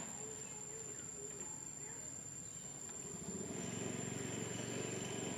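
Steady high-pitched insect drone, with a low hum coming in about three seconds in.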